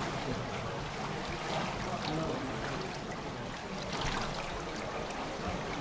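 Swimming pool water trickling and lapping steadily into the overflow gutter along the pool edge.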